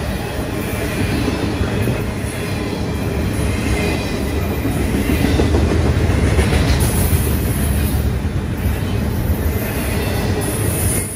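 Intermodal freight train of double-stack container well cars rolling past: a continuous heavy rumble and rattle of wheels on the rails, swelling a little in the middle.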